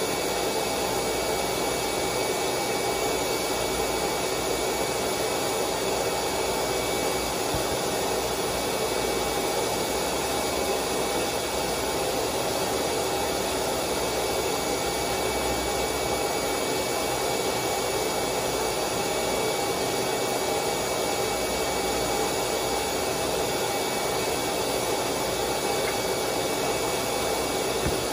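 Steady whir of an electric blower motor with a constant hum, running evenly throughout.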